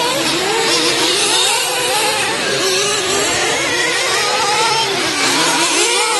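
Two-stroke nitro glow engines of 1/8-scale RC truggies revving up and down as they race, their pitch rising and falling with throttle through the turns.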